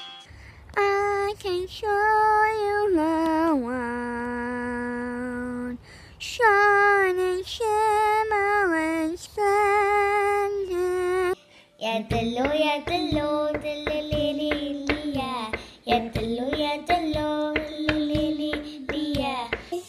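Girls singing solo without accompaniment, in two separate clips. The first voice sings a slow melody with long held notes; after a brief break about twelve seconds in, a second girl sings, with many short knocks under her voice.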